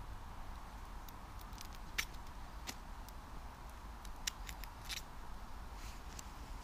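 Wood campfire crackling, with a few scattered sharp pops and snaps, a quick cluster of them about four to five seconds in, over a low steady rumble.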